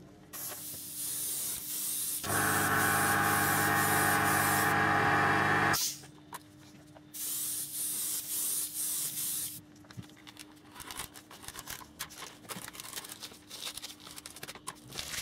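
Airbrush spraying weathering paint onto a model coach roof in hissing bursts. A long burst near the start is joined for a few seconds by a steady humming tone, which is the loudest part. Shorter bursts follow in the middle, and only faint stop-start spraying is left near the end.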